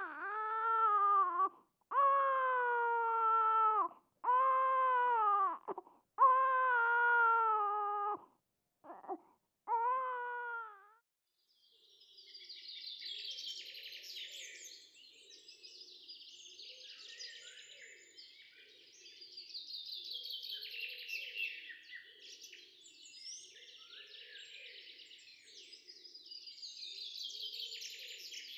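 An infant crying in about six separate wails over the first ten seconds, each one or two seconds long and falling in pitch. It then stops, and quieter bird chirping carries on to the end.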